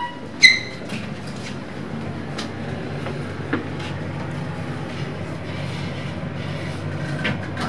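A short electronic elevator ding sounds about half a second in, followed by the steady low rumble of the elevator car travelling between floors, with a few faint clicks.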